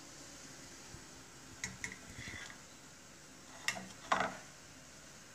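A metal wire spider strainer clinking and knocking against a steel pot and a ceramic bowl while a whole boiled cauliflower is lifted out of the water and set down. There are a few light clinks about two seconds in, then two sharper knocks around four seconds in.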